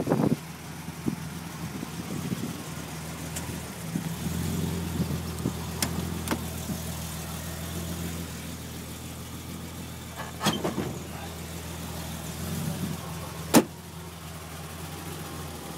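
BMW Hartge H26's 2.5-litre six-cylinder engine idling steadily, with a few sharp clicks and clunks from the hood release and latch. The loudest clunk comes near the end.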